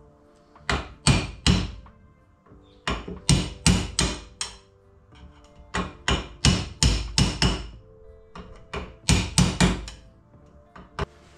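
Hammer blows tapping the milling machine's spindle and its new bearings into place, in four bursts of about four to seven quick strikes with a short ring after each.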